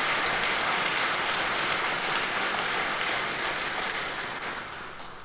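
Audience applauding, fading toward the end.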